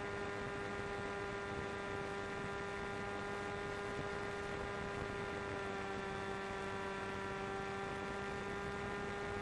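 FPV model plane's motor and propeller running at a steady throttle: a constant hum with several even overtones that holds one pitch throughout.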